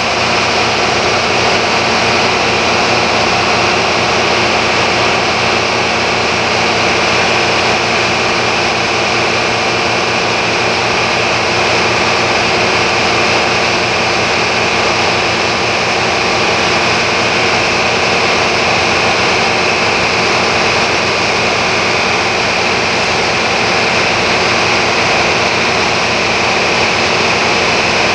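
A motor boat's engine running steadily while under way: a low, even hum beneath a loud, constant rushing noise.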